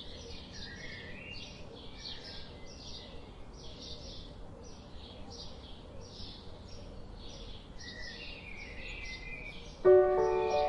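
Small songbirds chirping, a rapid stream of short, high, falling chirps with a few lower warbled phrases over a faint steady hiss. Near the end, soft music with bell-like piano notes comes in.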